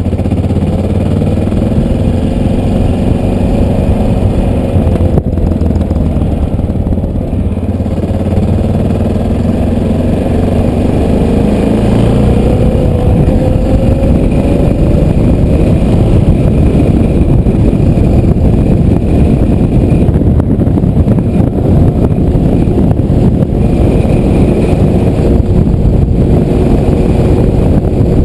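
Motorcycle ridden on the road, heard from the rider's helmet: the engine's pitch rises as it accelerates over the first dozen seconds, then wind and road noise build into a steady rush at cruising speed.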